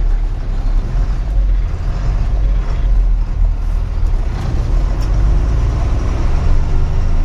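Truck's diesel engine running at low speed, heard from inside the cab as a steady, deep rumble.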